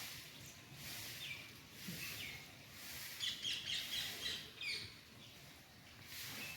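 Birds chirping: short, downward-sliding chirps about once a second, with a quick run of chirps in the middle.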